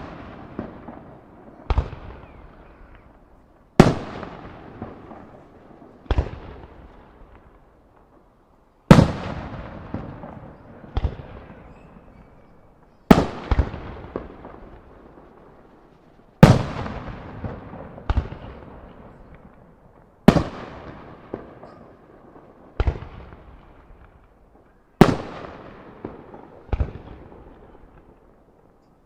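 Aerial firework shells, mostly Japanese spherical break shells, bursting in about fourteen sharp bangs spaced one to three seconds apart, with a few close pairs. Each bang trails off in a long echo.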